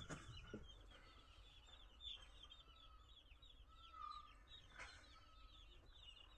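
Faint chorus of many young poultry chicks peeping: rapid, high, short cheeps overlapping continuously.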